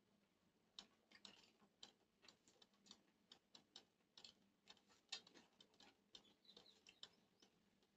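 Faint, irregular wet clicks and squelches of fingers mixing rice and greens on a metal plate, several a second.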